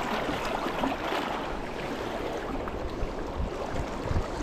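Steady rush of a flowing creek, water running over rocks.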